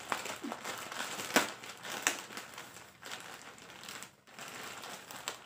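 Large white plastic parcel bag crinkling and crackling as it is handled and pulled open by hand, with sharper crackles about a second and a half in and again at about two seconds.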